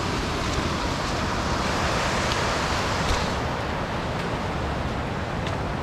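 Wind buffeting the microphone: a steady rushing noise with a flickering low rumble, swelling briefly about two to three seconds in, with a few faint ticks.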